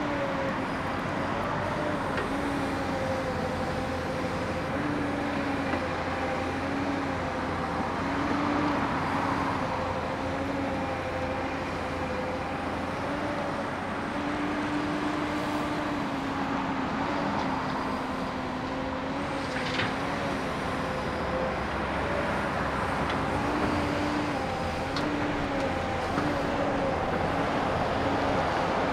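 Komatsu PC240LC excavator running as it works: a steady diesel-and-hydraulic drone whose pitch dips and rises slightly as the load changes. A couple of brief knocks come in the second half.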